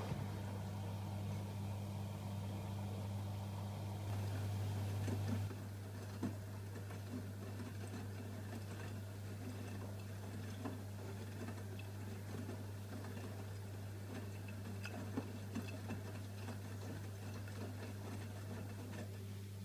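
AEG Öko-Lavamat front-loading washing machine with its drum motor running during the wash. The motor stops about five seconds in, and the machine pauses with a steady low hum and scattered light clicks.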